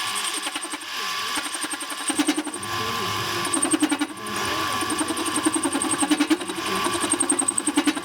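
A small motor-driven power tool running in several spells with a fast pulsing beat, easing off briefly between spells.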